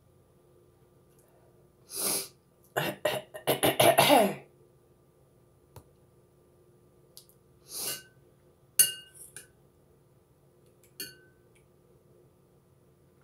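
A woman coughing and clearing her throat in a quick run of bursts a few seconds in, with a smaller cough later. Near the end a metal spoon clinks twice against the bowl, each clink ringing briefly.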